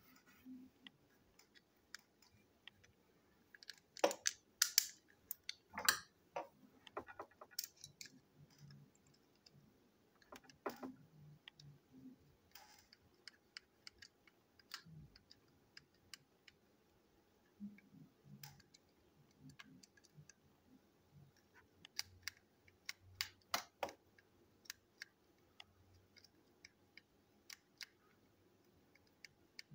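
Irregular small plastic clicks and light knocks from handling the parts of a toy train engine's plastic chassis, with the loudest clusters about four to six seconds in, near eleven seconds and near twenty-four seconds.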